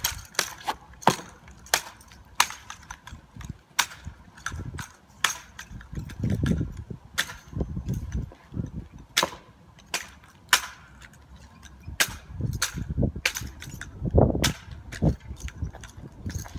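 A drill rifle being caught, slapped and spun by hand in exhibition drill: a string of sharp, irregular smacks, about one or two a second. Twice a low rumble rises under them.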